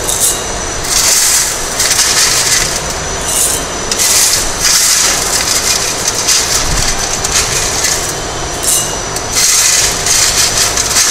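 Crushed stone aggregate clattering and scraping as a hand scoops handfuls of chips in a metal sieve and drops them into a cylindrical measure. It comes in irregular rattling bursts about a second apart.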